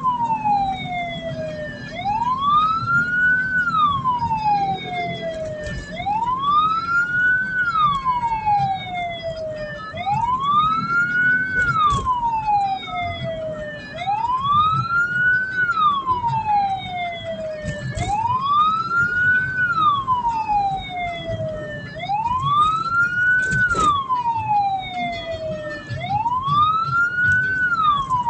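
Hearse siren wailing in a repeating cycle, rising quickly in pitch then falling more slowly, about once every four seconds, over the low rumble of the moving vehicle.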